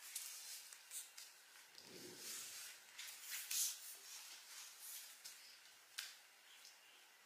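Faint rustling and handling noise as a baby monkey and a baby tug at a white sheet, with a few sharp clicks and a soft thump about two seconds in.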